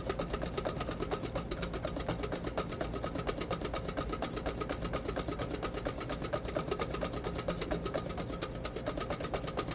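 Wire whisk beating zabaglione, egg yolks and Marsala, in a stainless steel bowl: rapid, even strokes scraping and tapping against the metal, several a second. The custard is being whisked over heat until it thickens to the ribbon stage.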